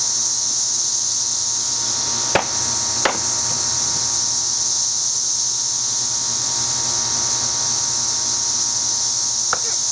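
Cicadas singing as a loud, steady, high-pitched chorus. Two sharp clicks a little over two seconds in, less than a second apart.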